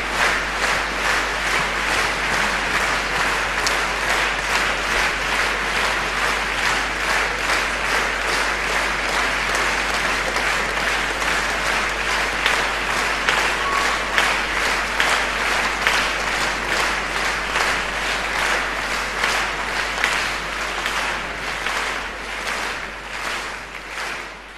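Concert audience applauding, the claps falling into a steady unison rhythm of about two to three a second, fading out near the end.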